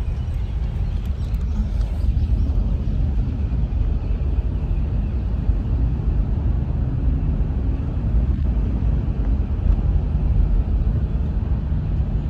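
A Mercedes-Benz car being driven, heard from inside the cabin: a steady low rumble of road and engine noise.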